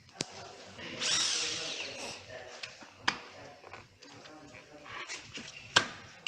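Workshop tool noises while working on a car starter motor: a brief whirring noise about a second in and several sharp metallic clicks.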